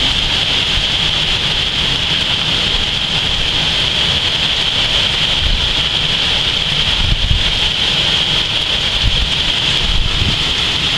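Hurricane wind and rain: a steady hiss of rain, with gusts of wind buffeting the microphone in uneven low rumbles.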